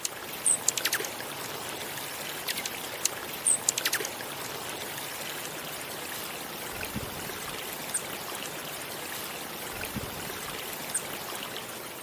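Steady running water, like a small stream or trickling water feature. Over it come a handful of short, sharp ticks and high chirps in the first four seconds, and a few fainter chirps later on.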